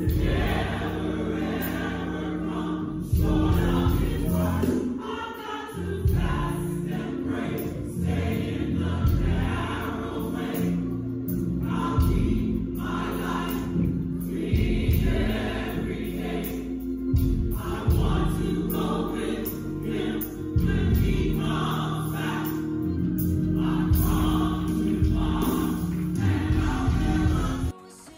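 Gospel choir singing over a steady instrumental accompaniment with sustained bass notes, cutting off sharply near the end.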